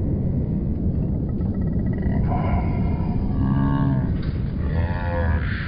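Cattle mooing: two drawn-out calls, about three and five seconds in, over a steady low rumbling noise.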